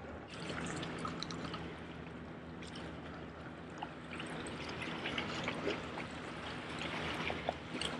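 Seawater washing and trickling among the rocks of a jetty, with small irregular splashes.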